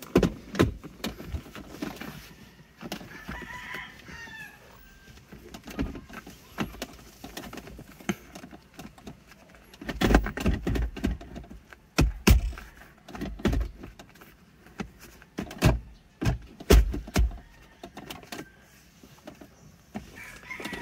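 An aftermarket armrest box on a car's centre console being pressed and rocked by hand, giving irregular plastic knocks and thumps, heaviest from about ten seconds in. The armrest has no clamp holding it, so it shifts and knocks against the console.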